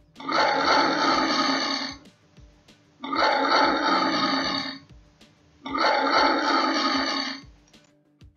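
A lion roaring three times, each roar about two seconds long with a short pause between, over faint background music.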